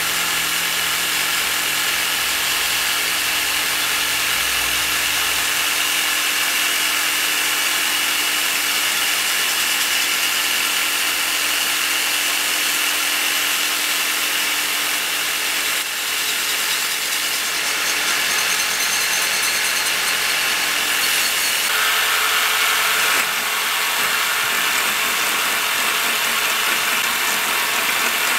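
Jigsaw running steadily while a cordless drill spins wooden stock against its reciprocating blade: a steady motor whine mixed with the rasp of wood being shaved into a dowel. The tone shifts about 21 to 23 seconds in.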